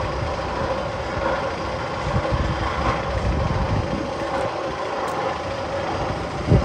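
Steady mechanical rumble with a constant hum, one of the sound effects played over the speakers in the Magnum XL 200 roller coaster's tunnel. A short knock comes right at the end.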